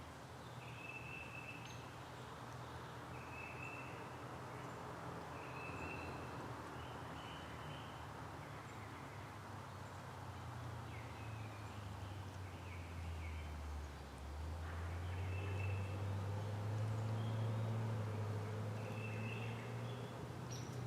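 Outdoor ambience: a small bird repeats short high chirps every second or two over a low, steady droning hum, probably a distant motor. The hum dips in pitch about two-thirds of the way through, then rises again and grows louder.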